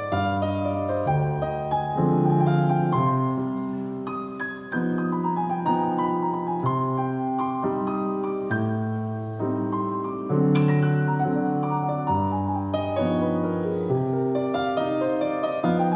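Jazz piano solo: full chords in the left hand under a melodic right-hand line, with notes struck and left to ring.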